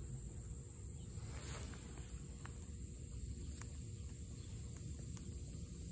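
Faint outdoor background: a steady low rumble with a thin, steady high-pitched whine over it and a few soft clicks.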